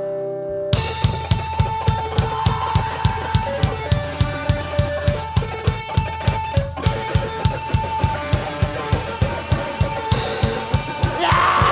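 Live rock band playing: a held electric guitar chord rings for about a second, then the full band comes in with guitars, bass and drums over a steady kick drum, about three beats a second. It gets louder near the end.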